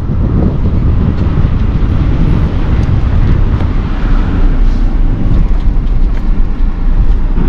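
A car on the move: a steady, loud low rumble of engine and road noise, with a few faint clicks and rattles.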